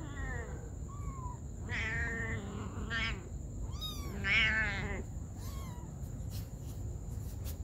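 Orange-and-white kitten mewing repeatedly: about six short, high-pitched mews over the first six seconds, the loudest about four seconds in.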